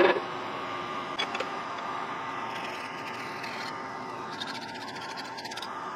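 Steady low background hum with a couple of light clicks about a second in, then faint scratchy rustling as a small freshly shaped metal part is handled.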